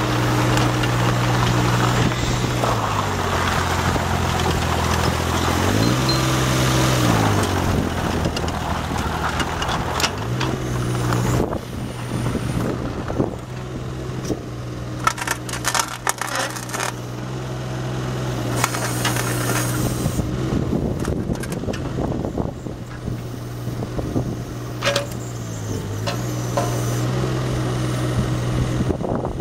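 Caterpillar 301.5 mini excavator's diesel engine running as the machine slews and works its boom and bucket, the engine note sagging and recovering three times as the hydraulics load it. Sharp metallic clanks and knocks about halfway through.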